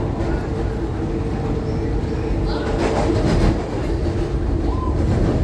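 Adtranz M4 rapid-transit train running on elevated track: a steady rumble of wheels on rail.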